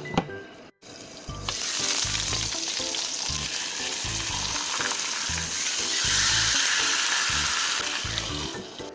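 Salted mackerel sizzling in a hot pan: a steady frying hiss that starts about a second and a half in, after a short click and a moment of silence, and eases off near the end.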